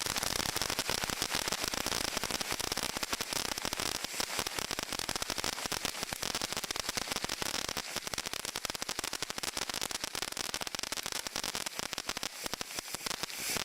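Firework fountain burning: a steady spraying hiss dense with crackling, thinning a little toward the end.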